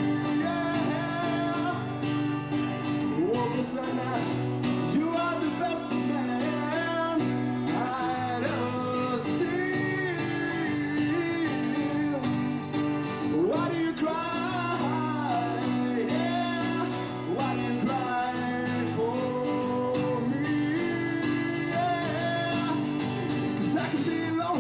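A man singing with his own strummed acoustic guitar, performed live through a PA. The chords change every few seconds beneath the vocal melody.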